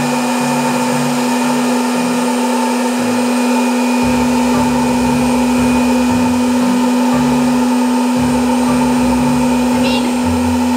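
VonShef retro hot-air popcorn maker running: its fan and heater blowing with a steady, loud hum, like a vacuum cleaner. The kernels are still heating, with no popping yet.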